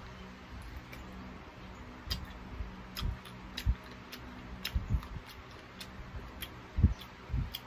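A person eating sauced chicken feet close to the microphone: chewing and gnawing, with irregular clicks and smacks of the mouth and a few dull bumps, the loudest near the end.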